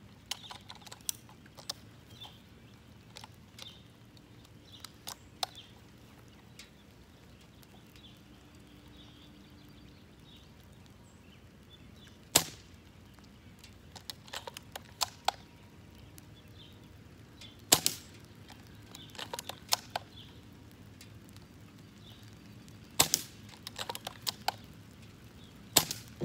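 Bolt-action airsoft sniper rifle being fired: four sharp snaps in the second half, roughly five seconds apart, with smaller clicks and clacks between them.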